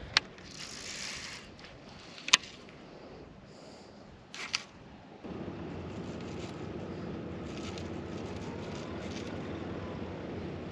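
A few sharp clicks, then about five seconds in an electric trolling motor starts with a steady whir and keeps running.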